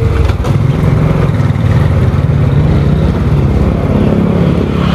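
Motorcycle engine running steadily at low speed while riding, its pitch lifting slightly near the end.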